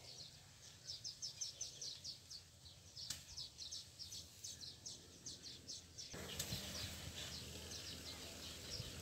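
Faint bird chirping in quick repeated runs of short high notes, several a second, over a low outdoor background that grows a little louder about six seconds in.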